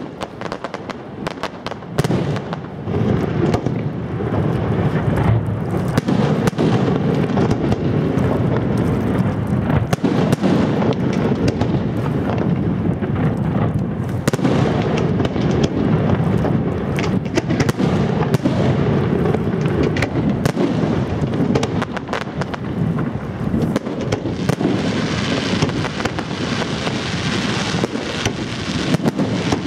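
Fireworks display: a dense, continuous barrage of bangs and crackling that grows louder about two seconds in.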